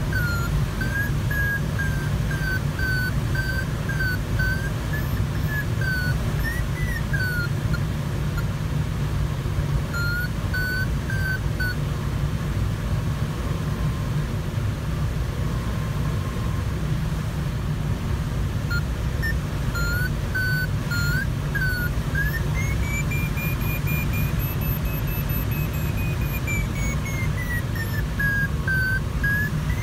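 Steady rush of airflow over a glider's canopy, with an electronic variometer beeping throughout. The beeps sit in a mid-high pitch that wavers, drop out for several seconds in the middle, then climb noticeably higher and fall back near the end as the rate of climb changes.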